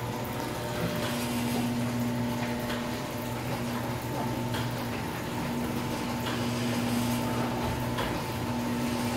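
Overhead Door model 100a garage door opener's AC motor and drive running steadily as it lowers a sectional garage door, a steady hum still a little loud.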